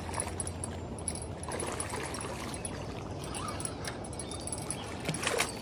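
Steady rush of water from river rapids, with a brief louder sound near the end.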